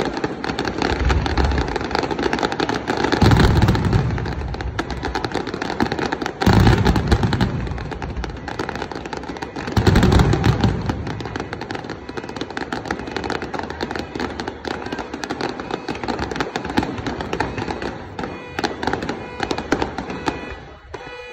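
Aerial fireworks display: deep booms of shells bursting about three, six and a half and ten seconds in, over continuous crackling that thins out near the end.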